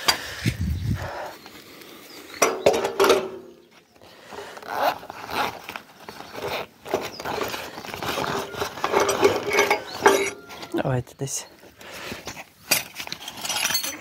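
Rustling of a fabric tool bag being rummaged through, with the metal spanners inside clinking against each other in irregular clicks.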